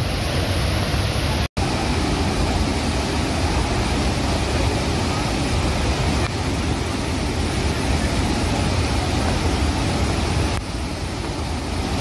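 Athirappilly Falls in heavy flow: a steady, dense rush of falling water with a deep low rumble. It cuts out for a split second about one and a half seconds in.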